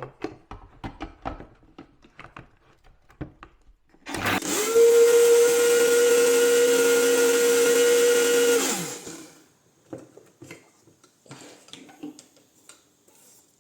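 Electric kitchen grinder motor grinding rice: it spins up about four seconds in, runs with a steady whine for about four and a half seconds, then winds down. Clicks and knocks of the jar being handled come before and after.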